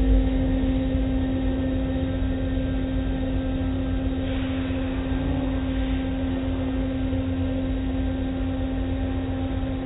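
Automatic car wash running, heard from inside the car's cabin: a steady machine hum over a low rumble, with the wash of water and soapy cloth strips sweeping over the car.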